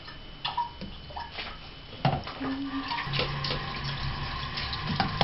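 A few light clicks and knocks from vegetables being handled in a metal pan, then, from about three seconds in, a steady rush of running water like a kitchen tap.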